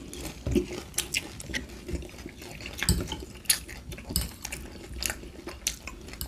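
Close-miked eating sounds: wet chewing of spaghetti and spring rolls, with scattered short clicks and taps of forks on the plate.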